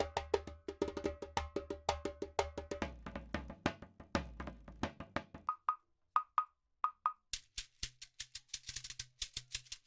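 Afro house percussion loops from a sample pack. It opens on a busy groove of pitched hand-percussion hits over a low bass. About five and a half seconds in this gives way to a few sparse paired knocks, then to a fast, bright shaker-like pattern near the end.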